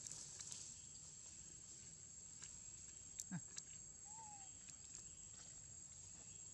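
Faint forest ambience: a steady high-pitched insect drone, with a few soft clicks about three seconds in.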